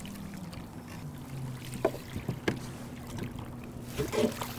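A striped bass splashing beside a plastic fishing kayak as it is grabbed and lifted from the water, with a few sharp knocks and splashes about two seconds in and again near the end. Under it runs a low steady hum from the kayak's electric trolling motor holding position, dropping in pitch about a second in.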